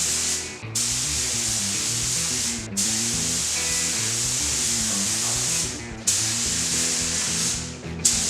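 Compressed-air paint spray gun hissing as it sprays paint onto the parts in long passes, stopping briefly about four times between passes.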